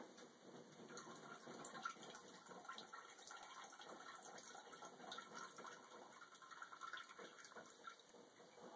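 Siamese cat urinating into the water of a toilet bowl: a faint, steady trickle that starts about a second in and stops shortly before the end.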